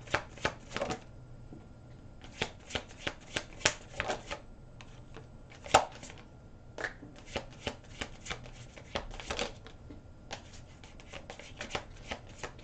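A deck of tarot cards being shuffled by hand: runs of quick snapping card clicks in several bursts, with one louder click about six seconds in.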